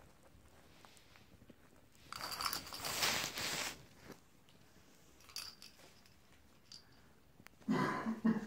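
Sheltie puppies playing with plastic toy balls: a loud rustling, rattling scuffle about two seconds in, a few light clicks, and a short voiced sound near the end.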